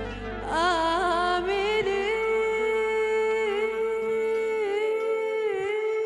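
A woman sings an Arabic song into a microphone, coming in about half a second in and then holding one long, wavering note, over violin and steady low instrumental accompaniment.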